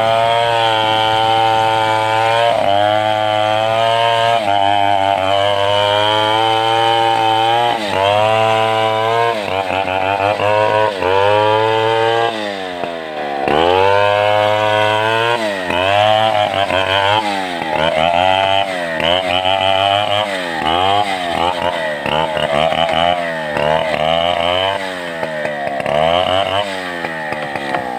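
Stihl 070 two-stroke chainsaw running hard, holding a steady high pitch for the first several seconds. Then its pitch repeatedly sags and climbs back, about once a second.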